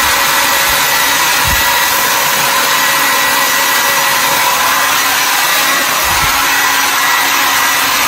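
Conair Cord-Keeper 1875-watt travel hair dryer running steadily on its low heat setting, blowing onto wet hair: a loud, even rush of air with a faint steady whine.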